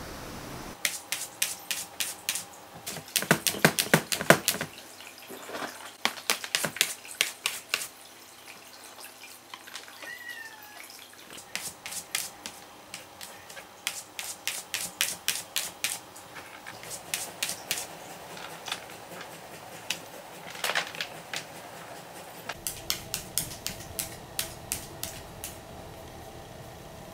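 A cat's claws scratching and rattling against the plastic walls of a hooded litter box, in runs of quick rasping strokes with short pauses, loudest about three to four seconds in. She makes the litter-covering motion but paws the wall instead of the litter. A short, faint meow comes about ten seconds in.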